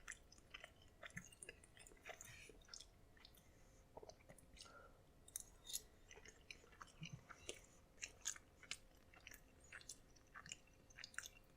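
Faint close-up chewing of soft microwave macaroni and cheese, with many small wet mouth clicks scattered throughout.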